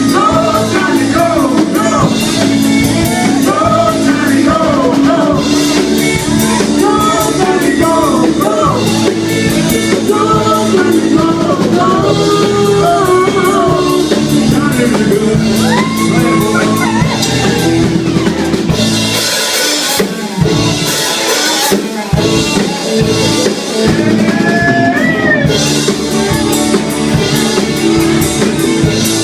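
Live rock band playing: a man singing lead over electric guitar and drum kit. The bass and drums drop away for a couple of seconds past the middle, and the vocal pauses near the end while the band plays on.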